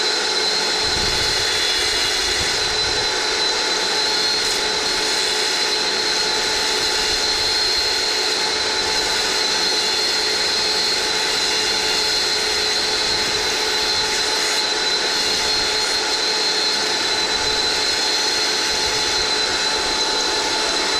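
Wet tile saw running with a steady high whine as its diamond blade cuts through a patterned backsplash tile pushed along the sliding table.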